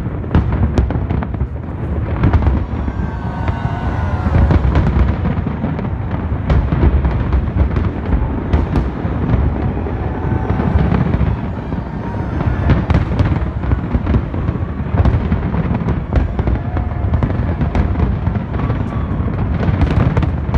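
Large aerial fireworks display: a dense, continuous run of sharp bangs and crackles over a deep steady rumble.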